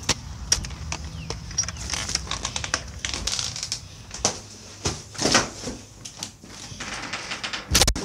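A glass storm door being handled: a run of sharp clicks and rattles from its latch and frame, with louder knocks about five seconds in and a loud thump near the end.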